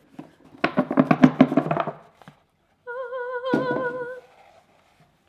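A woman vocalising a mock fanfare: a rapid rolled trill for about a second and a half, then one held sung note with vibrato. A thump lands in the middle of the note.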